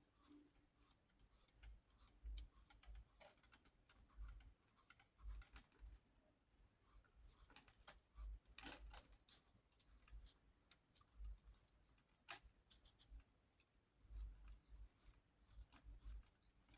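Near silence broken by faint, irregular small clicks and soft low bumps from art materials being handled on a work table.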